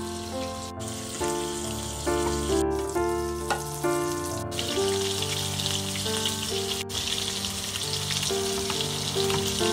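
Light melodic background music throughout. From about halfway a steady sizzle of pork patties frying in oil joins it.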